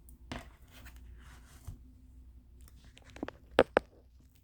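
A MacBook Air being handled on a desk while it is turned over to work on its underside: faint rustling and a small click, then three sharp knocks near the end, the last two loudest and close together.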